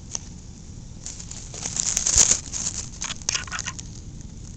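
Scratchy rustling and crinkling of hands handling a small catfish right against the microphone, with grass brushing the camera lying on the ground. The bursts start about a second in, are loudest in the middle and die away near the end.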